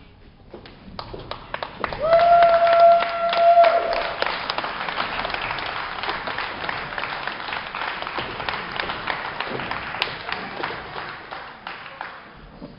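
Crowd applauding. It swells about two seconds in and tapers off near the end. A single steady held tone sounds over the loudest stretch for about two seconds.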